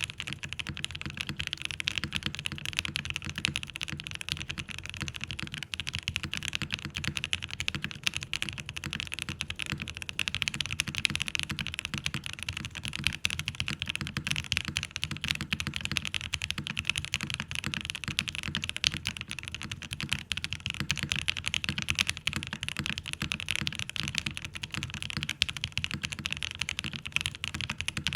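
Typing on a QK80 tenkeyless custom mechanical keyboard with Alpaca linear switches: fast, continuous keystrokes following close upon one another.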